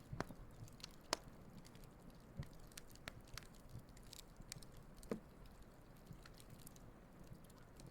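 Wood fire burning and crackling faintly, with irregular sharp pops and snaps over a low steady hiss; the loudest pops come just after the start, about a second in and about five seconds in.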